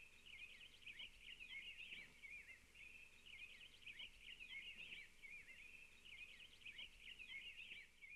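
Faint songbirds chirping and warbling in quick, twittering phrases, with two short pauses.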